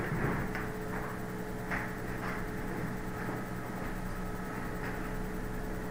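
Steady low electrical hum on the microphone line, with a few faint clicks and taps scattered through.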